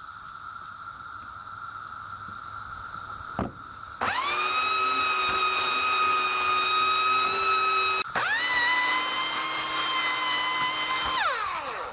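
Skil 3/4 HP belt sander switched on about a third of the way in: its motor whines up to a steady high pitch as it runs over wooden deck boards. It cuts out briefly and spins up again about two-thirds through, then winds down with a falling pitch near the end.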